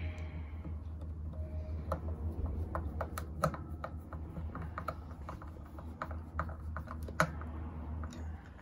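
Irregular small clicks and taps of guitar hardware parts being handled and fitted on the body, over a steady low hum.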